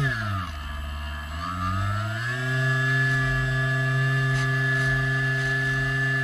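Swamp Dawg radio-controlled airboat's motor and air propeller, heard from on board. The pitch drops as the throttle is eased off, stays low for about a second, then climbs back and runs steady at speed.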